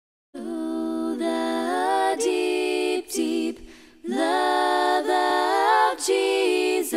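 Unaccompanied vocal group singing a hymn in close harmony, several voices moving together. It comes in two phrases with a short break in the middle.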